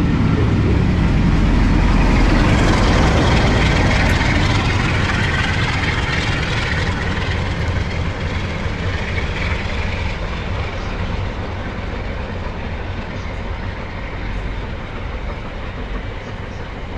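Passenger train coaches rolling past on the rails and away, a rumbling wheel-and-rail noise that fades steadily as the train departs.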